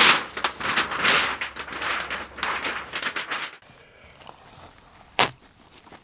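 Thin sheet metal being unrolled and flexed over grass: a rough crinkling rattle for about three and a half seconds, then much quieter, with one sharp click about five seconds in.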